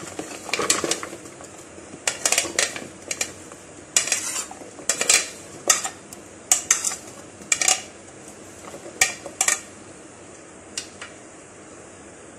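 Chopped apple pieces being tipped and scraped off a ceramic plate into a plastic mixing bowl: a run of short, irregular clattering scrapes and knocks of crockery and utensil, dying away about ten seconds in.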